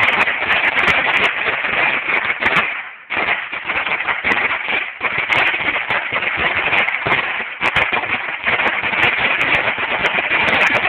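A Dominator 16,000-shot firecracker strip going off: a rapid, continuous crackle of small bangs, with a brief lull about three seconds in before the crackling picks up again.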